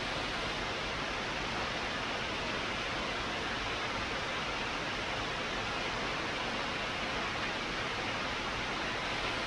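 Steady, even hiss of an automatic crystal grinding and polishing machine at work, holding one level without any rhythm or separate strokes.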